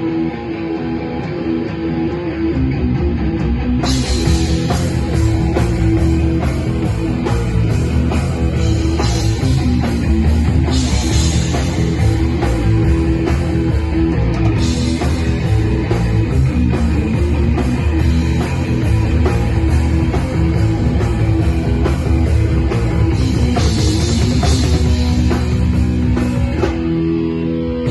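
Rock band playing a heavy instrumental passage: guitar with a drum kit. The drums and cymbals come in about four seconds in and drop out shortly before the end, leaving the guitar.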